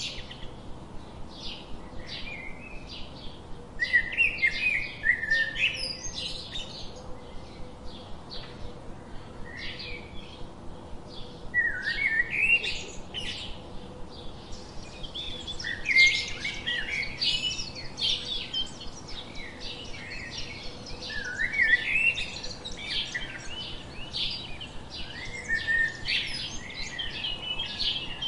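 Small birds chirping continuously: a fast run of short chirps, with louder bursts of several overlapping calls every few seconds.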